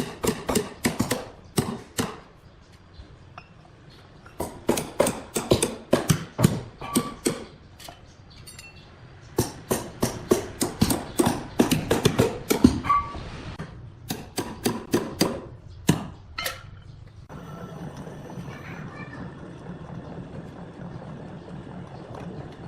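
Sharp knocks in quick runs of several a second, with pauses between the runs. A steady low hum takes over about three-quarters of the way through.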